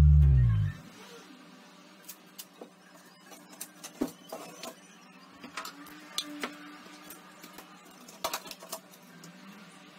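Background music fades out within the first second, leaving faint, irregular clicks and taps, the sharpest about four seconds in and a small cluster a little after eight seconds.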